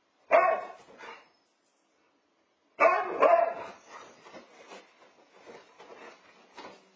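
Siberian huskies barking and yipping as they play: one loud burst of barks shortly after the start, another near three seconds in, then a string of softer short yips.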